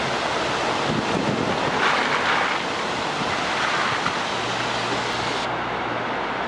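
Waterfall rushing steadily, a constant hiss of falling water that grows a little brighter about two seconds in.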